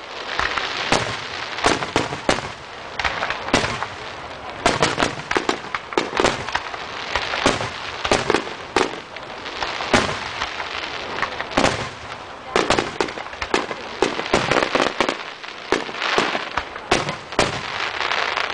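Aerial fireworks bursting in quick, irregular succession: many sharp bangs over a continuous crackle.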